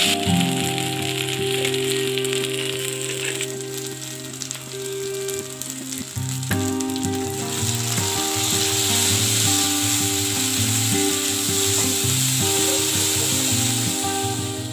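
Onion masala sizzling in hot oil in an aluminium kadhai as a spatula stirs it, with background music underneath.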